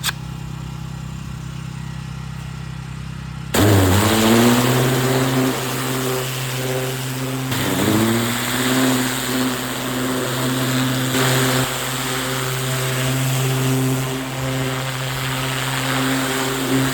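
Pressure washer engine running with a steady hum; about three and a half seconds in, spraying starts with a loud hiss of high-pressure water, and the engine note dips briefly as it takes the load, dipping again a few seconds later.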